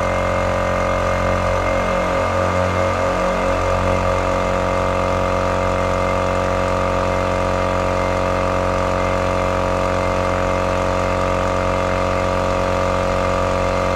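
Air compressor running steadily: a continuous mechanical drone with many even overtones, wavering briefly between about one and four seconds in.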